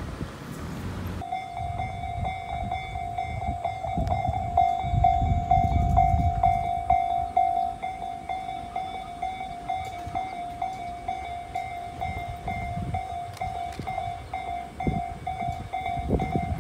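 Level-crossing warning bell that starts suddenly about a second in and keeps ringing with an evenly repeated single-pitch ding, the signal that a train is approaching. A low rumble runs underneath.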